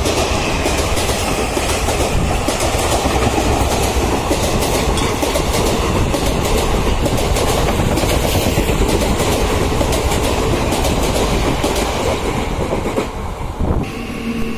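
Mumbai suburban local train running at speed: a loud, steady rumble and rush of wheels on rail, with rapid clicking and clatter over the rail joints. The level drops somewhat near the end.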